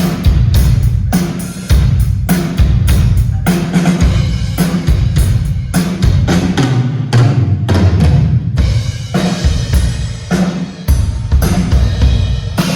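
Drum kit played loud and without a break, with rapid kick and snare hits, during a sound check.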